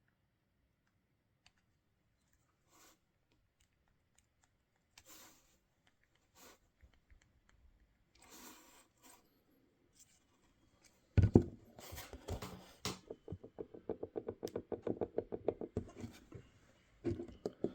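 Knocking and rattling from a GoPro's loose folding mount fingers, picked up loudly by the camera's own microphone: the play in the hinge is a fault. Faint rubbing and light taps, then about eleven seconds in a loud knock followed by a fast rattle of knocks, with another short cluster near the end.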